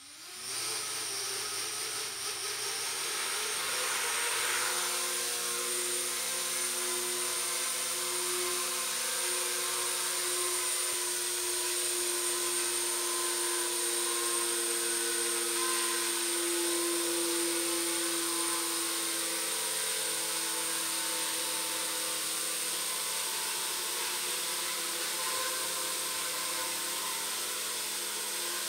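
Brushless motors and propellers of a small 4-inch quadcopter on a 3D-printed frame spinning up and hovering: a steady whine over a lower hum, starting abruptly as it takes off. Its pitch shifts a little partway through, which the builder takes for the motor C-clips rubbing against the 3D-printed frame as it softens with motor heat.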